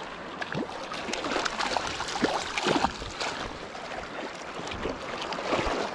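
Hooked brown trout splashing and thrashing at the surface, then water sloshing as it is scooped into a landing net. The splashing is loudest about two to three seconds in.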